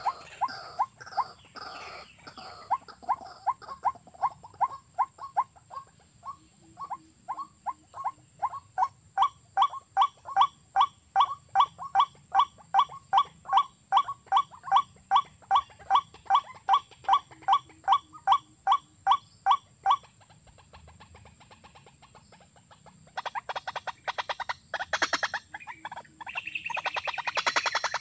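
Waterhen calling: a long series of short, evenly spaced calls at about two a second, which stops about twenty seconds in; after a short pause a faster, harsher run of notes starts and grows louder near the end.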